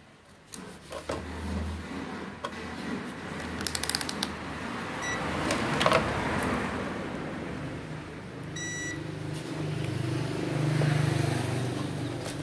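Two short electronic beeps, a brief one about five seconds in and a slightly longer one near nine seconds, over small handling clicks and taps on an opened appliance's circuit boards. A low rumbling hum runs underneath and swells near the end.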